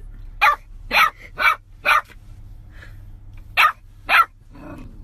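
Golden retriever puppy barking: six short, sharp yaps, four in quick succession, then two more after a pause, with a softer sound near the end.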